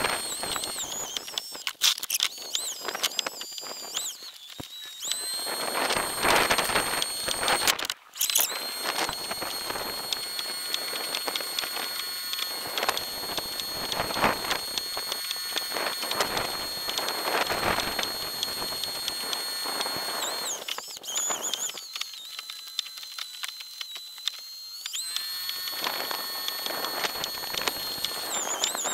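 Jackson Flex Drive E electric kayak drive running at top speed: a steady high-pitched whine over a gusty rushing noise. The whine cuts out for a moment about eight seconds in and fades for a few seconds near the end before returning.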